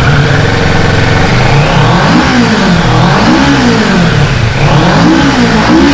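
Kawasaki Ninja 650's parallel-twin engine idling, then revved with several quick throttle blips, the pitch rising and falling each time.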